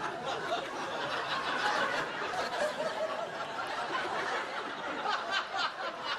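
A room full of people laughing continuously, studio audience and cast together.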